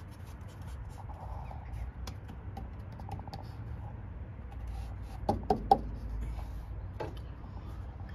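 Hand and phone handling noise under a van: scattered light clicks and taps over a low rumble, with three sharp knocks in quick succession about five seconds in and another a little later.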